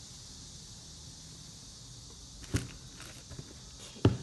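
Two sharp knocks about a second and a half apart, the second the louder, with a few light taps between them, from sneakers being handled in their cardboard shoebox, over a steady hiss.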